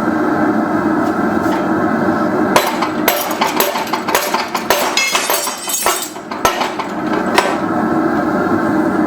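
Blacksmith's hammer striking steel on an anvil: a quick run of ringing blows lasting about five seconds, starting a few seconds in, over a steady background rush.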